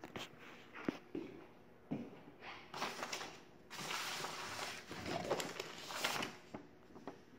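A few light knocks, then sheets of drawing paper rustling as they are handled. The rustling starts about three seconds in and lasts about three seconds.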